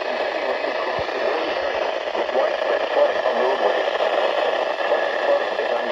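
Weather radio receiver putting out a steady hiss of static with no clear voice.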